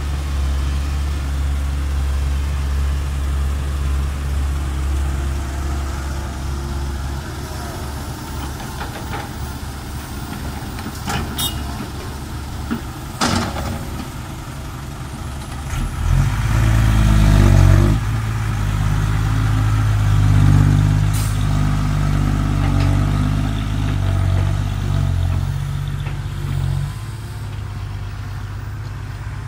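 Heavy diesel machinery at work: an engine running steadily, a few sharp knocks near the middle, then the engine working harder and louder for about ten seconds before settling.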